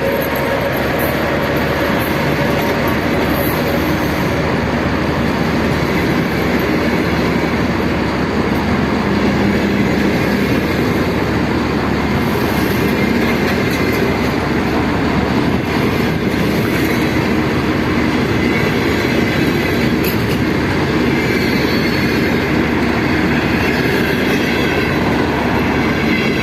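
Double-deck passenger train pulling out of a station, its wheels rolling over the rails in a steady, unbroken noise.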